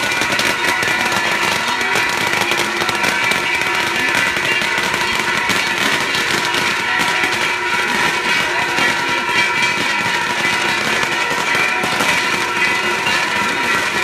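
Festival fireworks showering sparks, a dense unbroken crackling and hissing with steady high whistling tones running underneath.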